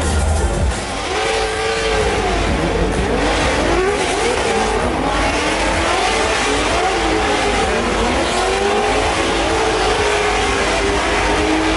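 Drift cars in a tandem run, engines revving up and down repeatedly as the drivers work the throttle through the slide, over a steady hiss of sliding tyres.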